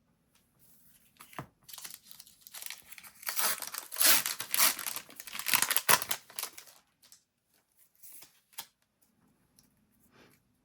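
A foil trading-card booster pack wrapper being torn open and crinkled, the crackling loudest in the middle, then a few faint rustles.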